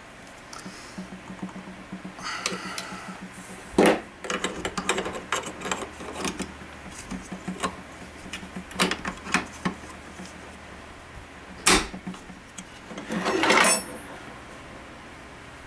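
AK-pattern rifle parts being handled and fitted by hand: scattered clicks and clacks, a sharp knock about four seconds in and another near twelve seconds, and a short scraping rattle near the end, over a steady low hum.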